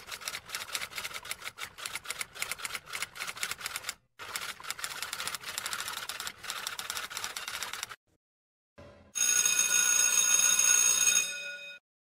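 Typewriter keys clattering rapidly, with a short break about four seconds in and stopping about eight seconds in; about a second later a bell rings steadily for over two seconds, the loudest sound here.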